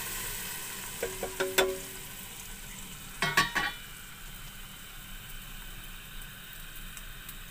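Hot tadka of oil, browned onions and spices poured into a pot of cooked mixed dal, sizzling at first and dying down to a faint hiss. A few short metallic clanks from the pan against the pot come about a second in and again about three seconds in.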